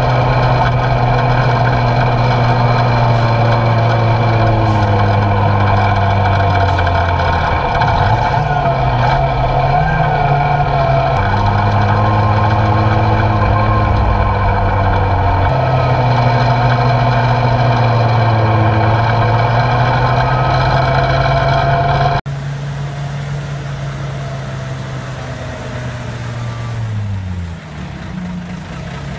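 1942 Diamond T 980 wrecker's engine running as the truck drives, heard close up, its pitch rising and falling several times. About two-thirds through, the sound cuts abruptly to the same truck heard from the roadside, quieter, its engine note dropping near the end.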